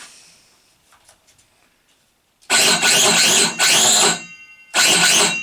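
Parkside PHKSA 20-LI A2 20V cordless circular saw motor triggered twice. It comes up to speed almost at once and runs for nearly two seconds, whines as it winds down, then runs again briefly.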